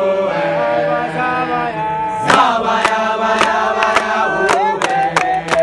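Gwijo, a South African group chant: a crowd of voices singing in unison and holding long notes. About two seconds in, sharp claps come in and keep a beat.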